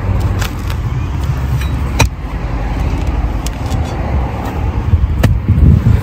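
Digging at a tree root with a hand tool: sharp knocks, the clearest about two seconds in and again just after five seconds, over a loud, uneven low rumble.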